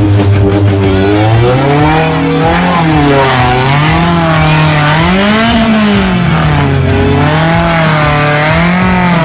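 Off-road vehicle's engine revving up and down repeatedly under throttle, its pitch rising and falling about once a second and climbing highest about five seconds in.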